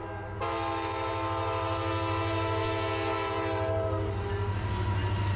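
Alaska Railroad diesel locomotives passing with the multi-note air horn sounding one long steady blast from about half a second in, cutting off near four seconds. The low rumble of the train running by carries on under and after it.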